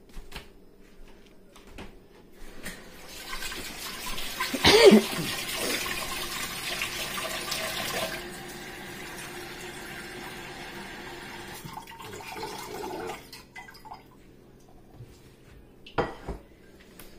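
Kitchen faucet running cold water into a stainless steel saucepan, a steady rushing stream for about ten seconds before it is turned off. A sharp knock comes about five seconds in, and another short knock near the end.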